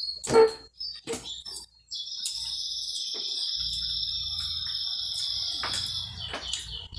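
A small dog whining in a high, thin, continuous tone for several seconds, begging for food at the table. A few sharp clicks and a louder knock come first, as food is handled over a plastic bowl.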